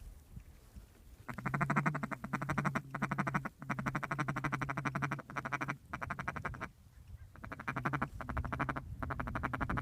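Hand-blown duck call giving a fast, buzzy feed-call chatter at one steady pitch, in long runs with short breaks, calling ducks in toward the hunters.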